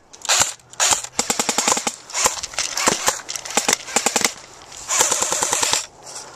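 AK-style airsoft rifle firing in several rapid full-auto bursts of sharp clicks, the longest about five seconds in and lasting about a second.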